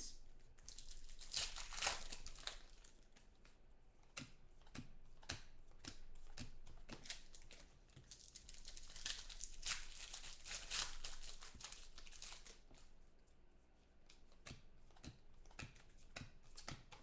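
Foil wrappers of 2014 Panini Contenders football card packs crinkling and tearing open, with cards handled and flicked between the hands: irregular crackles and rustles, busiest about a second in and again around the middle.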